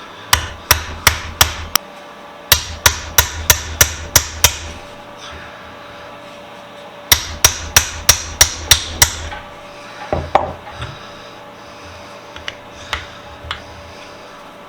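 Hammer striking a steel pin punch to drive out a stuck pin from a small benchtop vise: three runs of five to seven sharp metal-on-metal blows, about three a second, then one duller knock and a few light taps.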